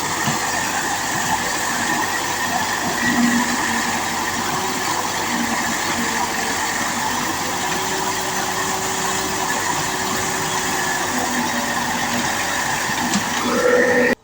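Heavy machine engine running steadily under a constant hiss.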